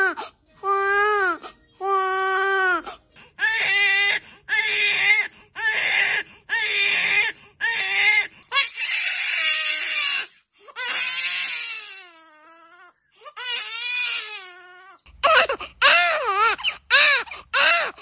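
Newborn babies crying, several different infants one after another, each in repeated wailing cries about a second apart. Near the end a faster run of short, sharp cries.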